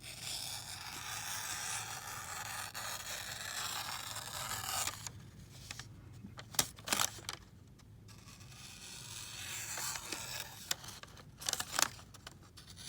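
Freshly sharpened Böker knife blade slicing through thin receipt paper: one long continuous cut lasting about five seconds, a few light clicks, then a second shorter cut. The clean slicing is the test of a very sharp edge.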